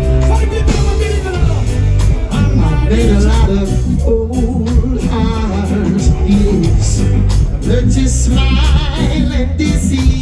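Live band music with a lead voice singing a melody over a steady bass and beat.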